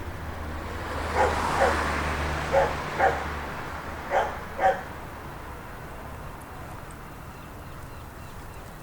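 A dog barking in three quick double barks, woof-woof, over a background rush of noise that swells and fades in the first half, with a steady low hum.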